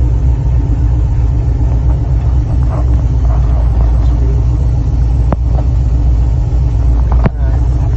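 Ford Racing BOSS 347 small-block V8 crate engine running steadily with a low rumble, carrying a bad knock that a speed shop believes is internal. Two sharp clicks come about five and seven seconds in.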